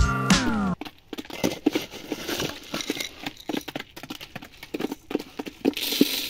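Background music ends with a falling pitch within the first second, then hens peck grain from a plastic feeder: a rapid, irregular run of small clicks and rattles. Near the end, grain poured into the feeder from a cup gives a brief rush.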